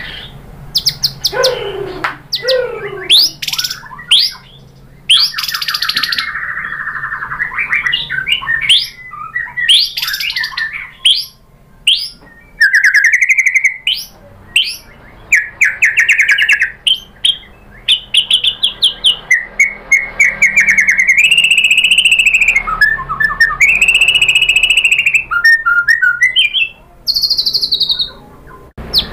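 White-rumped shama (murai batu) singing hard and continuously, running through a varied repertoire of mimicked phrases: a couple of steep falling sweeps near the start, then rapid strings of repeated notes, trills and clear held whistles in quick succession.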